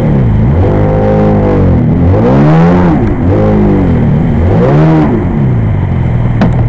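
1994 Sea-Doo's two-stroke engine, running on bare carburettors with no flame arrestor, revving up and dropping back about five times in a row, then holding a lower steady speed near the end. A short sharp click comes just before the end.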